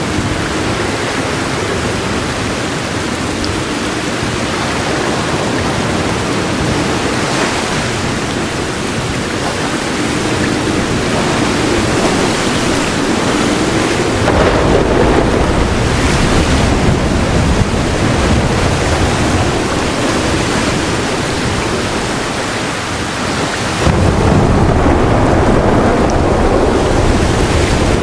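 Heavy rain falling steadily as a dense hiss, with deep rolls of thunder rumbling in from about halfway through and swelling in suddenly, louder, near the end.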